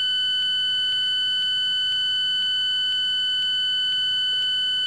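Home-built 4-bit linear PCM synthesizer playing a steady, high-pitched buzzing tone. The tone comes from a looped four-step staircase waveform held in its memory, and a faint tick repeats about twice a second.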